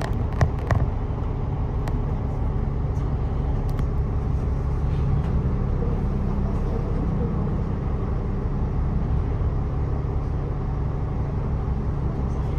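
Diesel bus engine and road noise heard from inside the moving bus: a steady low rumble whose note rises a little about five seconds in, with a few sharp clicks or rattles in the first second.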